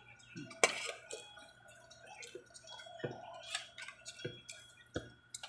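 Light scattered clicks and taps of eating from a plate, with a few soft knocks, over a faint steady hum.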